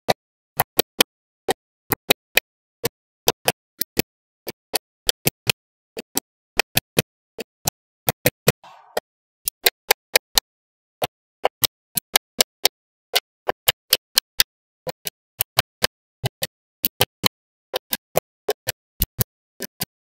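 Small magnetic balls clicking as they snap onto one another one at a time: sharp, dry clicks, often in quick pairs, a few each second.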